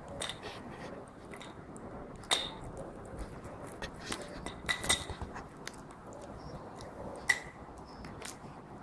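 A puppy chewing and pawing at a hard plastic playpen floor: scattered sharp clicks and taps of teeth and claws on plastic, with three louder knocks spread through.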